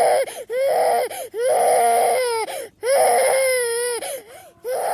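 Baby crying in a run of repeated wails, about five in all, each lasting up to about a second with short catches of breath between; each wail starts low, holds a high pitch, then drops away at the end.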